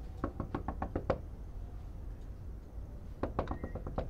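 Knuckles rapping on a wooden front door: a quick run of about seven knocks, then after a pause a second, shorter run of knocks about three seconds in.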